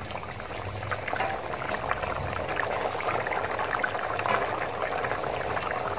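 Thick potato curry boiling in a metal pot: a steady bubbling with small pops as bubbles break through the gravy. Its water has mostly boiled away and the gravy is reducing.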